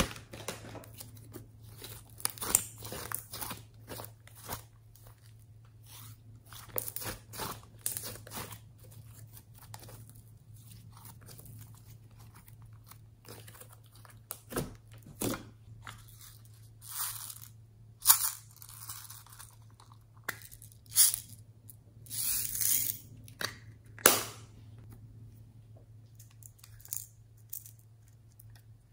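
Hands squishing and kneading glossy glitter slime, making irregular sticky clicks, pops and crackles, with louder bursts now and then and a few quieter pauses.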